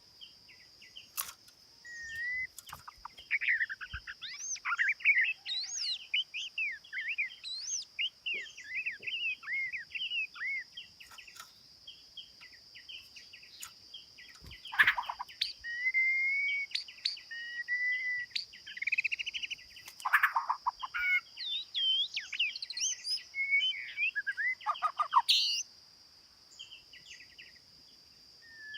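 A songbird singing a rapid, varied song of chirps, trills and whistled notes, some sweeping down in pitch, over a steady high insect buzz.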